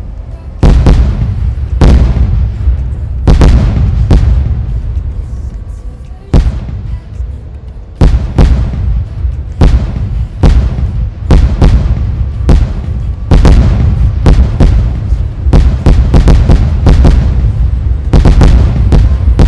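Fireworks going off: a long run of sharp bangs over a deep rumble, thinning out for a few seconds about four seconds in, then coming thick and fast from about eight seconds on.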